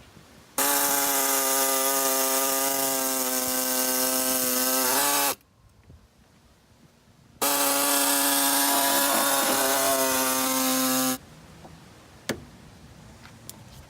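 Two runs of a handheld power cutting tool trimming a van bumper, each about four seconds with a steady high whine. The first winds down in pitch as it stops; the second cuts off sharply. A single short click follows a second later.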